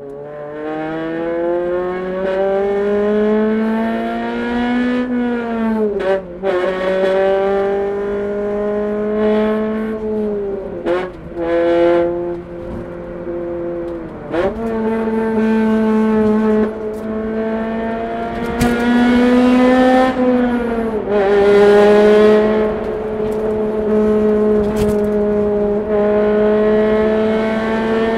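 Honda Civic FD2 Type R's 2.0-litre VTEC four-cylinder and exhaust under way, the pitch climbing as the engine pulls up through the revs and dropping sharply about four times as the throttle is lifted or a gear is changed, with steadier running in between. The sound echoes off the tunnel walls.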